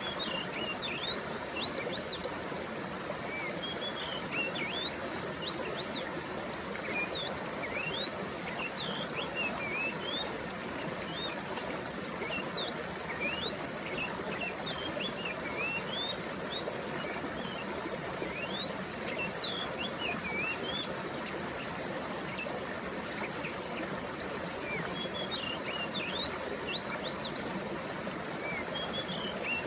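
Water flowing steadily, with many birds chirping over it in short, quick, sweeping calls.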